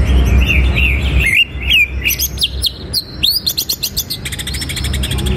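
Male green leafbird (cucak ijo) singing a varied run of sharp chips and quick whistled notes. Near the end it breaks into a fast, high rattling trill.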